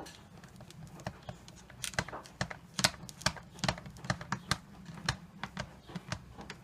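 Rapid, irregular small hard clicks and taps from handling and fitting the parts of a tumble dryer door hinge and its plastic lugs.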